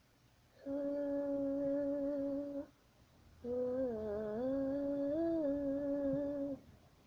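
A person humming a slow tune in two phrases. The first is one note held for about two seconds; after a short break comes a longer phrase whose pitch steps down, then up, then back.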